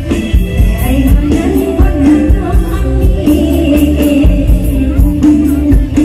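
Live Isan mor lam band music played loud through a stage PA: a woman singing over a steady thumping drum beat with cymbals.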